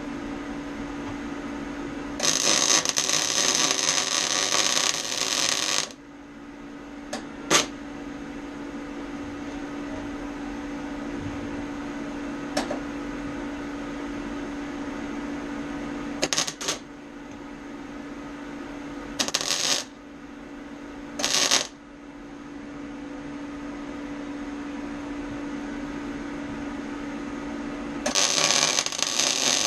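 MIG welder laying short stitch welds on sheet steel: the arc crackles and sizzles in five bursts, the first about four seconds long, three under a second, and one starting near the end. A steady hum and a single sharp click come between the welds.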